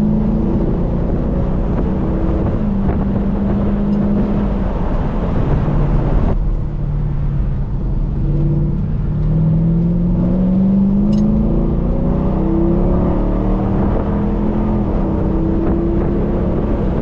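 Mercedes SLK 55 AMG's M113 V8 engine pulling hard under acceleration, its pitch climbing. It breaks off abruptly about six seconds in, then rises again and settles into a steady run.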